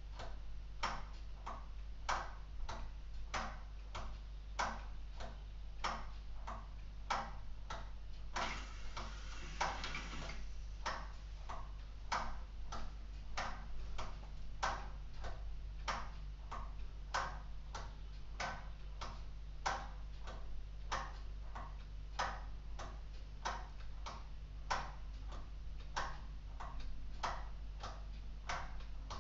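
LEGO Technic mechanical clock escapement ticking steadily, about two to three sharp clicks a second. About nine seconds in, a brief whirring rattle lasting roughly two seconds: the separate wind-up motor running the cuckoo mechanism as the cuckoo comes out.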